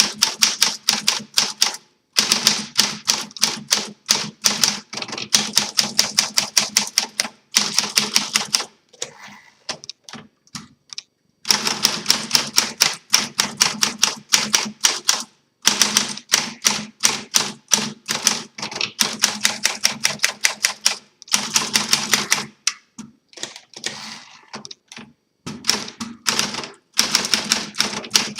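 Typing on a 1945 Smith Corona Sterling portable manual typewriter: fast runs of sharp keystroke clacks, several a second, broken by short pauses, with a quieter stretch of softer sounds about a third of the way through.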